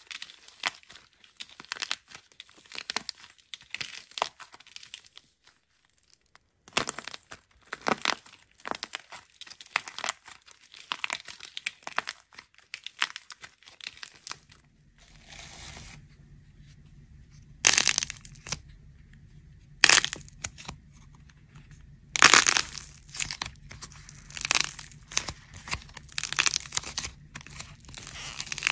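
Dried plaster-clay shell cracking and crumbling between fingers: dense runs of small sharp crackles. About halfway through a low steady hum comes in underneath, and the crackling then comes in louder separate bursts as squeezed clay breaks apart.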